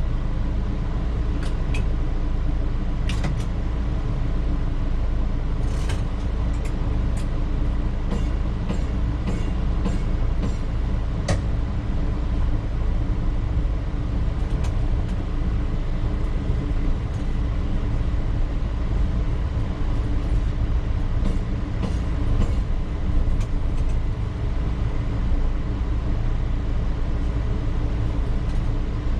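P865 light rail car #144 running slowly along old track, heard from inside its cab: a steady low rumble with a faint hum, and scattered sharp clicks and rattles, most of them in the first half.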